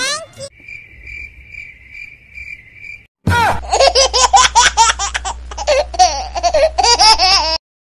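Meme sound effects: a quick rising glide, then crickets chirping in a steady pulse for about two and a half seconds, then loud high-pitched giggling laughter that cuts off suddenly near the end.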